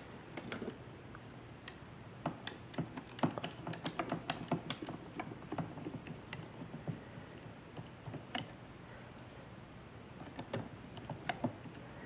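Hand screwdriver backing out the small screw that holds a Roomba's side brush: faint, irregular little clicks and scrapes of the bit in the screw head and of the plastic brush hub, thinning out for a couple of seconds after the middle.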